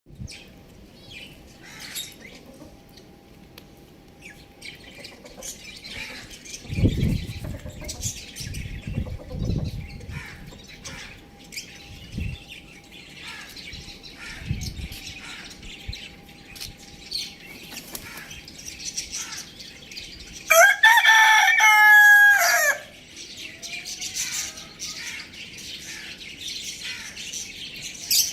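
Rooster crowing once, a loud pitched call of about two seconds, a little past two thirds of the way through. Before it come scattered chirps and clucks of chickens and a few low thuds.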